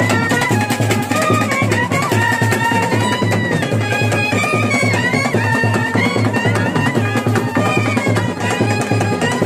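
Street brass band playing: trumpets carry a wavering, sliding melody over fast, continuous drumming.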